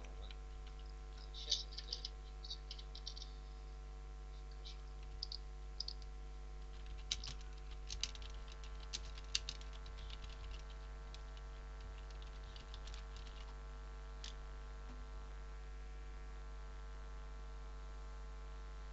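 Computer keyboard keys clicked in scattered strokes during the first half, over a steady electrical hum with several fixed tones that carries on alone afterwards.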